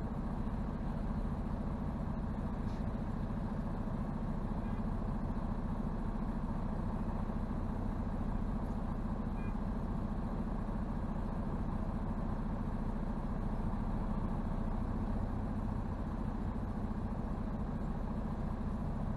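Semi truck's diesel engine running with a steady, unchanging low drone.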